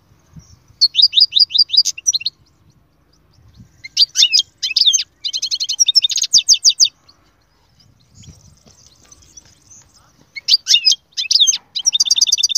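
European goldfinch singing: three bouts of fast twittering trills of repeated high notes, separated by short pauses.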